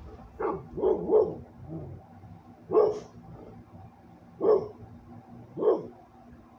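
A dog barking: a quick run of three barks, then three single barks spaced about a second and a half apart.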